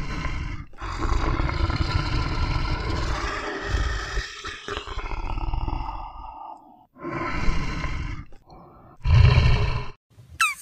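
A big cat roaring: one long roar, then two shorter ones.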